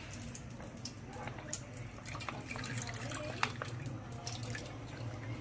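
Milk pouring in a stream from a carton into a frying pan, splashing and spattering with scattered small crackles, over a steady low hum.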